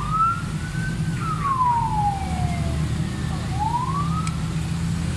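A siren wailing, its pitch rising and falling slowly, about one cycle every three to four seconds, over a low steady rumble.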